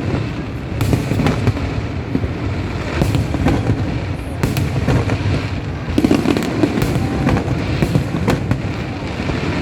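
Aerial fireworks bursting one after another: sharp bangs and crackling over a continuous low rumble.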